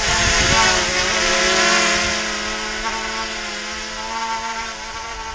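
Hubsan Mini Pro quadcopter drone hovering close by, its motors and propellers giving a steady buzzing whine with several pitched tones that waver slightly, a little louder in the first two seconds. The owner hears vibration coming from one of its arms.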